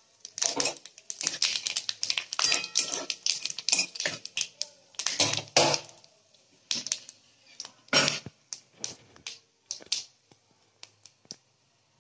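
Whole spices (fennel, fenugreek and nigella seeds with a dried red chilli and bay leaves) spluttering in hot oil in a kadai: quick crackling pops, thick for the first half, thinning to scattered pops near the end.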